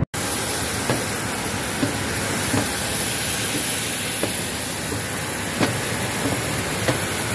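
Steady noise of a parked jet airliner on the apron: an even rushing roar with a constant thin high whine, and a few faint clicks.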